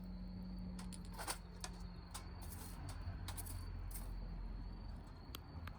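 Wood campfire crackling, with scattered irregular pops and snaps.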